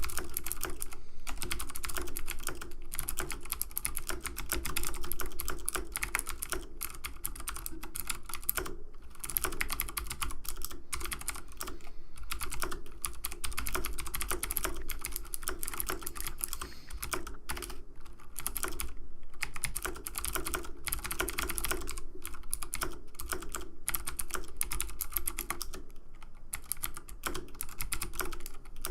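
Rapid, continuous clicking of keys on a computer keyboard, with a few brief pauses between runs of keystrokes.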